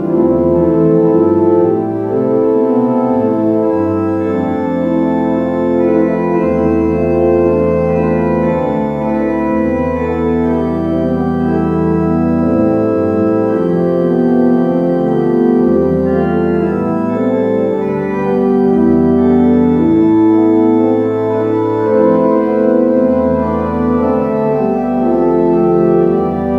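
Church organ played from a four-manual console: slow, sustained chords that change every second or two, with deep pedal bass notes coming in and dropping out.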